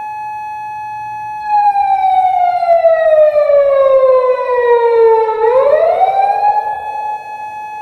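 Japanese unmarked police car's siren wailing. It holds a high tone, slides slowly down in pitch over about four seconds, then sweeps quickly back up about five and a half seconds in and holds high again.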